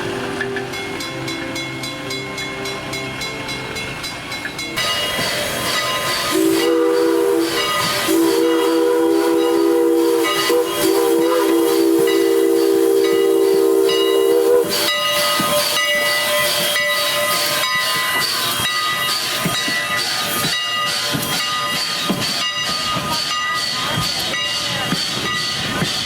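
Steam train running, with steam hissing and a chime steam whistle sounding a short blast and then a long one of about seven seconds, between about six and fifteen seconds in.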